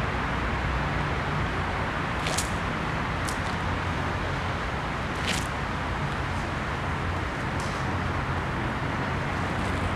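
Steady outdoor background hum, like distant road traffic, with four brief sharp clicks spread through it.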